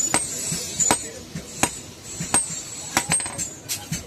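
Hand hammer striking hot iron on an anvil: sharp blows at a steady pace, roughly one every three-quarters of a second, some with a brief metallic ring.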